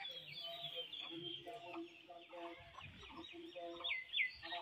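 Chickens clucking in repeated short calls, with small birds chirping rapidly over them. Two louder chirps come near the end.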